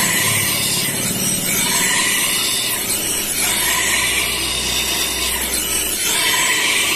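Steel blade of a pair of hand hedge shears being ground against a spinning sharpening wheel to put an edge on it: a loud, steady hiss of metal on abrasive that swells and eases as the blade is drawn along the wheel several times.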